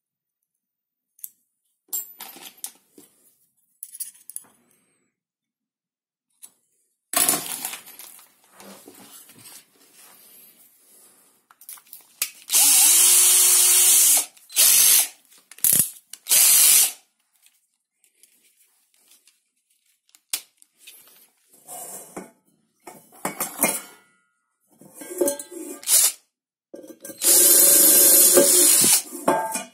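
Cordless drill running in several short bursts, the last and longest while drilling through the bottom of an enamelled steel pot to open the hole for a rivet. A few small clicks of handling come first.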